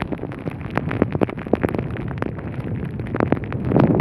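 Rain falling, with many irregular sharp taps of drops striking close to the microphone over a low rumble of wind on the microphone.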